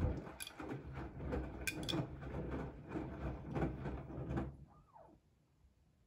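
Siemens iQ300 front-loading washing machine running a wash: the drum turns clothes through sudsy water with a low motor hum, sloshing and soft thuds, then stops about four and a half seconds in as the drum pauses in the wash cycle.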